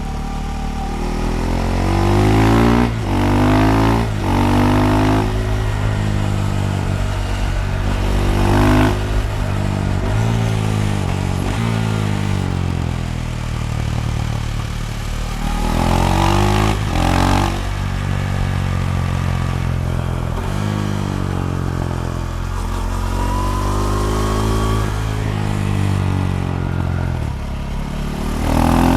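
KTM Duke 390 single-cylinder engine through a decatted Akrapovic slip-on exhaust, accelerating and easing off repeatedly while riding. Pitch climbs in quick steps with brief breaks, about two to five seconds in and again around sixteen seconds, then falls away in between, with sharp pops and crackles scattered through.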